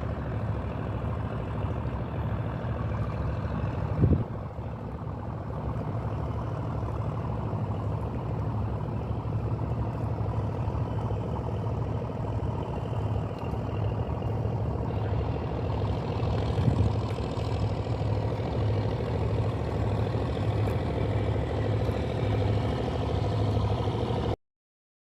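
A boat engine running steadily with a deep, even hum, a single knock about four seconds in. It cuts off abruptly near the end.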